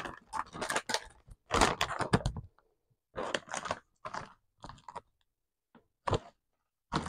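Plastic potato chip bag crinkling as it is torn open and handled, in short irregular rustles with pauses between them, fading off after about five seconds.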